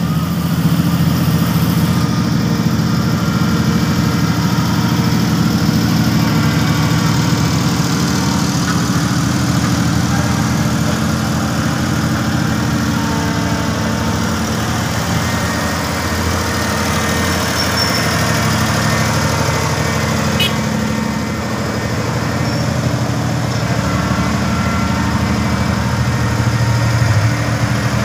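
Small tandem road roller's engine running steadily as the double-drum roller compacts fresh asphalt.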